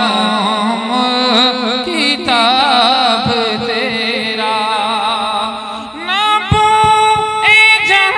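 A man singing a naat, an Urdu devotional poem, into a microphone in a slow, ornamented melody. The notes waver and bend through the first part, then give way to longer held notes near the end.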